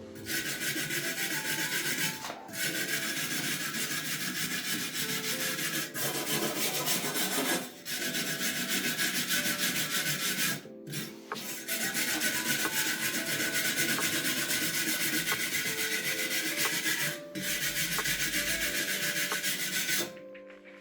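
Continuous abrasive rasping on a cast iron pot lid: the metal is being sanded or scrubbed to clean it for seasoning. It runs in long passes broken by about five short pauses.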